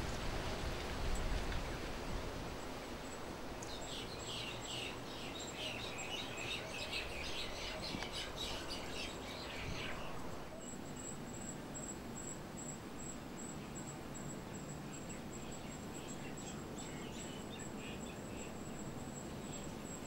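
Outdoor ambience over a steady low background noise: birds chirping in a busy cluster for several seconds, then from about halfway a thin, high-pitched pulsing insect trill that carries on.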